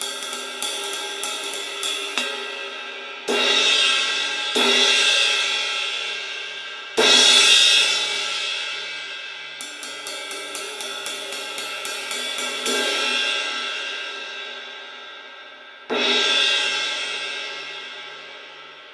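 Old 18-inch A. Zildjian medium crash/ride, with no rivets yet, struck with a wooden drumstick. Runs of quick ride strokes come near the start and again around the middle, between five loud crash hits that ring on with a long wash. The last crash fades out near the end. This is the cymbal's plain sound, which its owner says neither crashes nor rides well.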